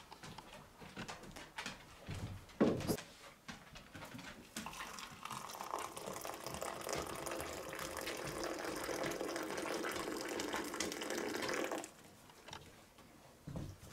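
A thin stream of water poured into a porcelain cup, filling it steadily for about seven seconds and stopping abruptly near the end. A short knock comes a couple of seconds before the pour.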